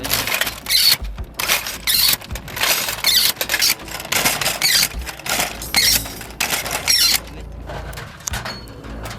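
ZU-23 twin 23 mm anti-aircraft autocannon firing a string of short bursts, back to back, stopping about seven seconds in.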